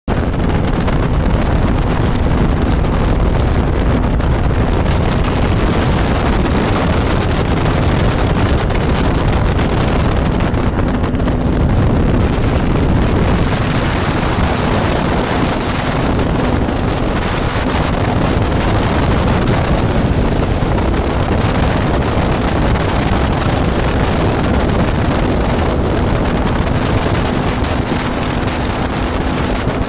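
Ultralight aircraft's engine and propeller running steadily in flight, a loud unbroken drone with wind rushing over the microphone.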